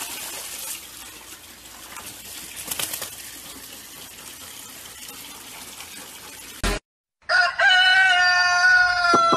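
Water from a tap pouring and splashing into an overflowing plastic bucket, cut off suddenly about seven seconds in. Then a chicken calls in louder, drawn-out notes, falling slightly in pitch.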